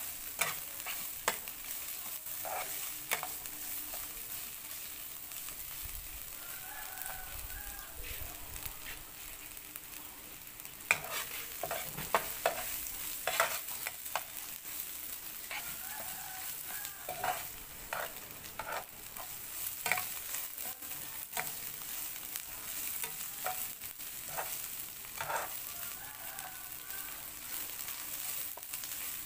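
Fish and kroeung paste with herbs sizzling in a nonstick frying pan, with a metal spatula stirring and scraping against the pan in frequent short scrapes and clicks.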